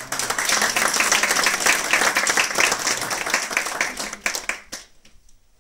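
Audience applause: many people clapping, starting abruptly, then thinning to a few last claps and dying away about five seconds in.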